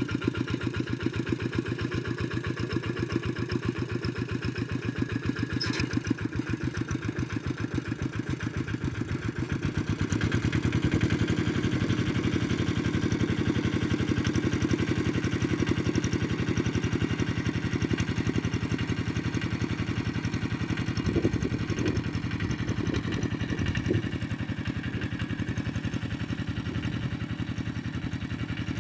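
Walk-behind tractor engine running steadily while ploughing, with a fast, even firing beat; it gets louder and fuller from about ten seconds in, as if working harder.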